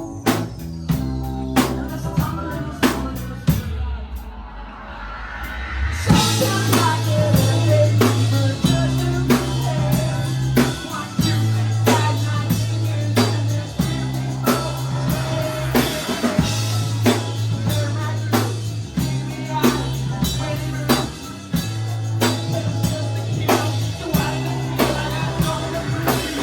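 Live rock band playing an instrumental stretch of a song: drum kit hits with long held bass notes underneath. About four seconds in the band drops back to a thin, quieter passage, then comes back in at full strength a couple of seconds later.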